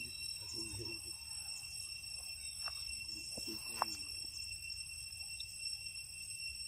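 Insects chirping in a steady drone with several high tones, over a low rumble. Short low murmurs of a voice come about half a second in and again about three and a half seconds in, with a few sharp clicks in between.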